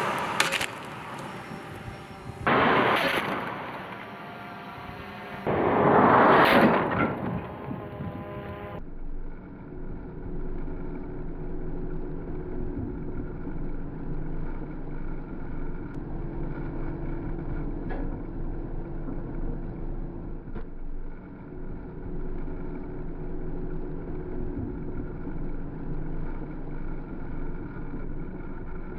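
SUV driving at about 140 km/h: three loud rushing pass-bys in the first several seconds, then a steady drone of engine and wind noise with a low hum as the vehicle keeps moving.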